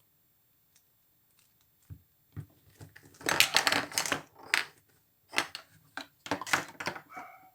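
Hands pulling and blending soft modelling clay on a work surface, making irregular rustling, crackling handling noises in two main clusters, about three to four seconds in and again from about five and a half seconds in.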